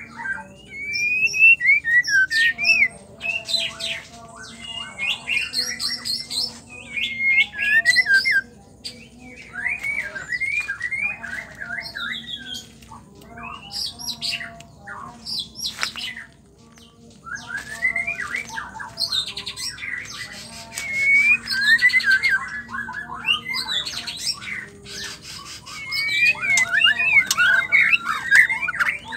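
White-rumped shama singing: a long run of fast, varied whistled phrases mixed with harsh chattering notes, broken by a couple of short pauses.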